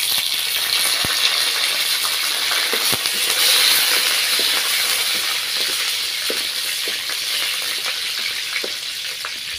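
Curry leaves, dried red chillies, mustard seeds and fenugreek sizzling and spluttering in hot oil in a clay pot: the tempering (thalippu) for a kara kuzhambu. It is a steady high hiss with scattered small pops, loudest about four seconds in, then slowly dying down.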